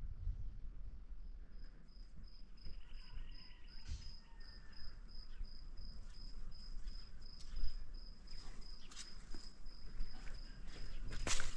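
A cricket chirping steadily in a high, evenly repeated pulse, over a low rumble with scattered clicks and knocks. There is a sharper click near the end.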